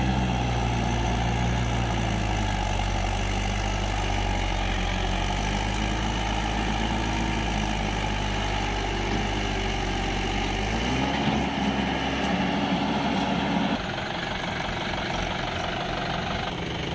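Swaraj tractor's diesel engine working hard under load, pulling a loaded trolley through deep mud. Its note runs steady, then revs up about eleven seconds in, holds, and drops back just before fourteen seconds.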